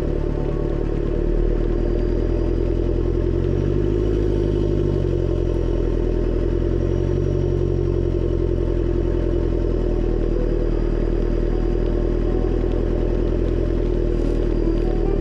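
A four-wheel drive's engine running steadily while driving, its pitch dipping and rising briefly a few seconds in and again a little later.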